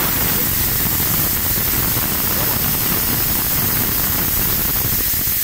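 Remeza two-cylinder, belt-driven piston air compressor running under load, its electric motor and pump going steadily with a fast, even pulse as it pumps up its 50-litre receiver tank.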